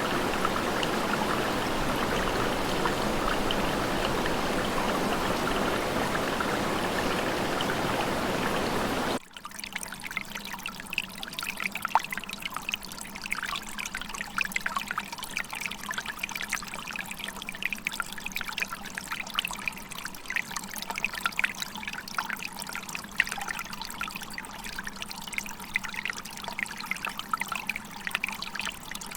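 Waterfall water rushing steadily and loudly; about nine seconds in it cuts abruptly to quieter trickling and splashing water.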